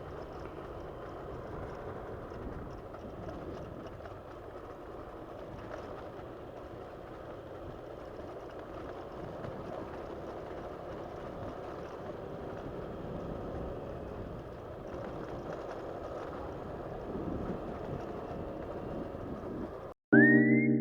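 Motorcycle riding along a road: a steady mix of engine and wind noise, with no clear engine note standing out. It cuts off suddenly near the end, and loud music with a high, gliding whistle-like tone comes in.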